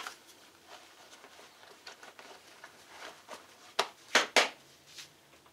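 Hands handling a wallet holster and smoothing denim jeans: soft rustling and light taps, with three short, louder brushes about four seconds in.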